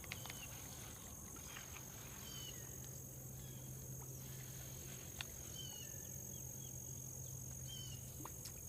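Steady high-pitched insect chorus, with a bird's short chirps every couple of seconds and a few faint clicks.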